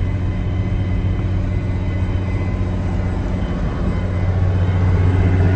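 Case Steiger 9380 Quad Track tractor's diesel engine running steadily under way, heard from inside the cab as a low drone. The drone dips briefly about four seconds in, then comes back a little louder.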